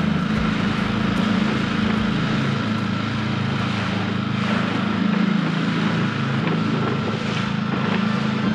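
Small outboard motor running at a steady, even pitch, pushing an inflatable boat along, with wind and water rushing past the hull.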